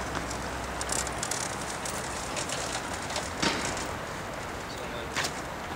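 Outdoor town-street ambience: a steady background hiss with a few sharp clicks and knocks, the loudest about three and a half seconds in and another near the end.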